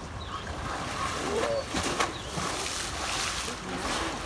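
Steady low outdoor rumble, wind or water noise, with faint distant voices and two short knocks about two seconds in.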